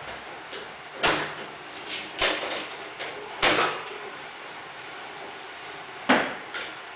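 Steel kart lift trolley and the go-kart chassis on it clunking and rattling as the kart is tilted over: four sharp metal knocks, the first three about a second apart, then one more near the end.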